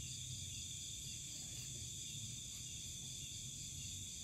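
Steady chorus of night insects, crickets among them, with several high, unbroken shrilling tones layered together over a faint low rumble.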